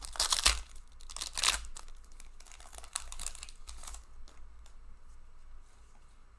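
Crinkly wrapper of a hockey card pack being torn open and crumpled by hand. The loudest crackles come in the first two seconds, with lighter rustling as the cards are handled after that.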